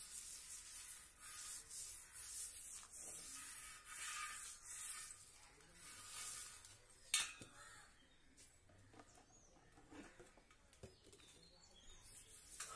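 A small plastic-bristled brush scrubbing the rusty inner rim of a motorcycle spoke wheel in short repeated strokes, with one sharp click about seven seconds in; the scrubbing grows fainter after that.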